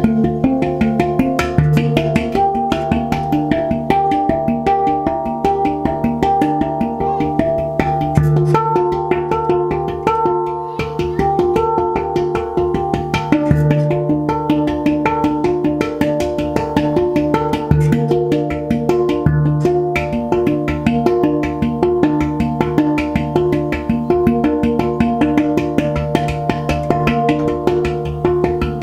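Handpan played with the hands: a steady stream of quick, ringing steel notes over a low note that sounds again and again beneath them, with a brief lull about ten seconds in.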